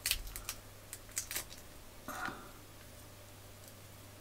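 Faint clicks and light handling noise as fingers turn and press a small white plastic part from an audio cassette. There is a cluster of small clicks in the first second and a half and one more about two seconds in.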